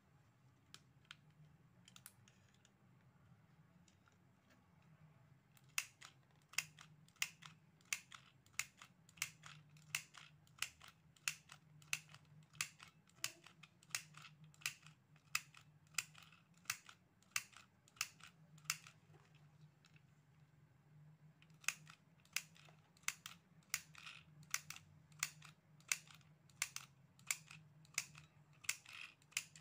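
Handheld mini sewing machine clicking with each squeeze of its handle as it stitches through cloth, about two clicks a second. The clicking starts a few seconds in, stops for about two seconds past the middle, then picks up again.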